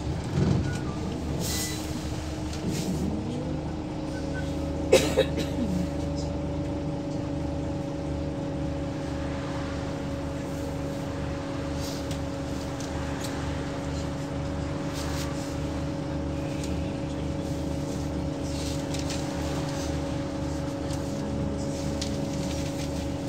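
Scania L94UB single-deck bus on the move, heard from inside: a steady engine and drivetrain drone with a constant whine that settles in after a few seconds. A sharp knock about five seconds in.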